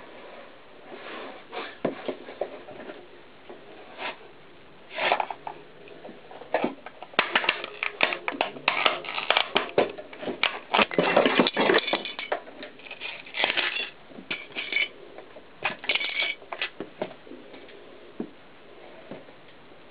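Clear plastic tape-cassette case cracking and shattering under a mountain bike's knobby tyre. A few scattered clicks at first, then a dense run of sharp cracks and crunches through the middle that dies away near the end.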